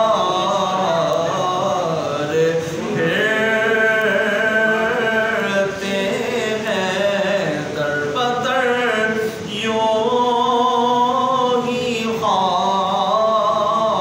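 A man singing an Urdu naat with no instruments, in long held, gliding melodic phrases a few seconds each, with short breaks between them.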